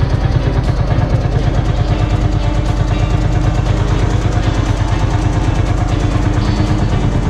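Lanz tractor's single-cylinder two-stroke hot-bulb engine running close by, with a rapid, even beat.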